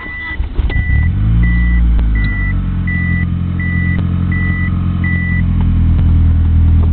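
1G DSM's turbocharged 4G63 four-cylinder cranking and catching right away, its revs flaring briefly about a second in, then settling into a steady idle through a 3-inch turbo-back exhaust with a dual-chamber Flowmaster muffler. The car's warning chime beeps about every 0.7 s for the first five seconds.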